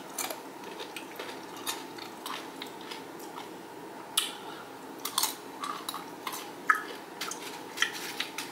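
XXtra Flamin Hot Doritos tortilla chips crunching as they are bitten and chewed close to the microphone, with the light clatter of chips being picked from a plate; sharp, scattered crunches at irregular intervals.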